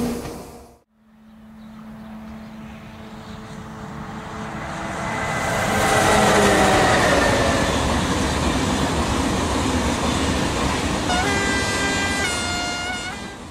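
A train passing with its horn sounding. A steady low horn tone grows into a louder rush as the train goes by, and the horn's pitch falls as it passes. Near the end a higher horn sounds, stepping in pitch.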